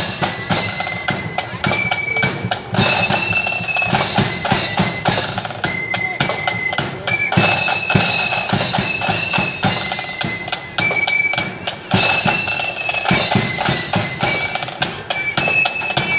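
Marching band playing a march: a shrill, high melody over steady snare and bass drum beats.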